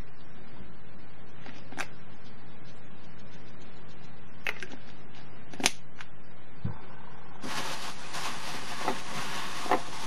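Kitchen handling sounds: a few sharp clicks and taps of seasoning containers over a metal bowl, then, about three-quarters of the way in, a steady rustling hiss starts, broken by two more clicks.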